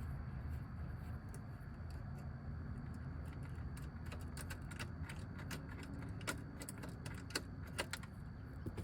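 Scattered metallic clicks and small rattles of a hand tool backing out the 8 mm bolts that hold a plastic lower dash cover, over a steady low hum. The clicks come irregularly in the second half.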